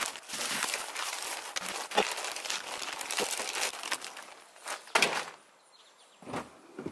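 Plastic zip-lock bag rustling and crinkling as it is handled and zipped shut, followed by a sharper knock about five seconds in and another near the end.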